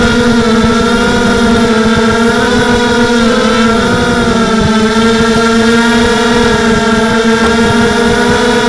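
Tarot Robocat 280 FPV quadcopter's brushless motors and propellers whining steadily in flight, heard close up from its onboard camera, the pitch wavering briefly about three to four seconds in as the throttle shifts, over a rough rumble.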